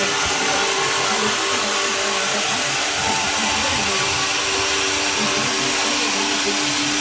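Homemade bandsaw mill running: a loud, steady machine noise with a few held tones.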